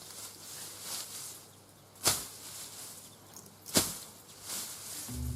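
Two sharp knocks of work clearing the ground, about a second and a half apart, over faint outdoor background. Acoustic guitar music comes in near the end.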